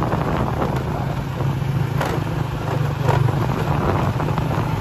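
Motorcycle engine running steadily while being ridden, under a broad rushing noise, with a couple of brief knocks about two and three seconds in.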